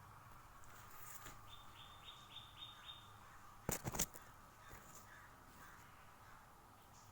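A crow cawing three or four times in quick succession, a little after the middle. Just before the caws, a small bird gives a fast run of about six high chirps.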